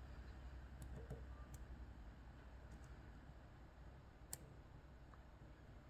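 Faint ticking of a lock pick working the pins inside an Ezcurra DS-10 lock cylinder, with one sharper click about four seconds in.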